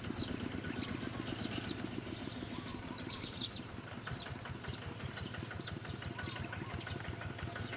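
Small birds chirping with many short, high calls over a steady low rumble like a distant engine running.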